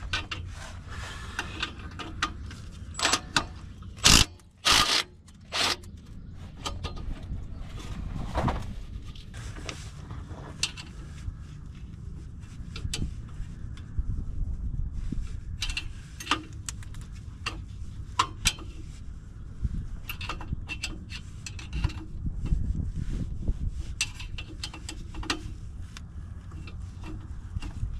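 Hand work fitting a new exhaust clamp onto the rusted flex pipe of a 2013 Mini: scattered metal clinks, knocks and scrapes, with a few louder knocks a few seconds in, over a steady low rumble.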